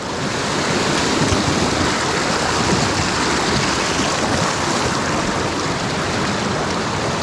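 Fast-flowing mountain stream water, a steady dense wash of noise.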